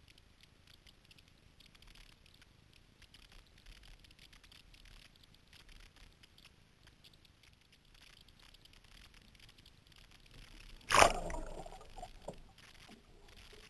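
Faint water lapping and dripping around a kayak, then about eleven seconds in a loud splash as the kayak rolls over and the microphone goes under, followed by a few smaller muffled splashes and gurgles.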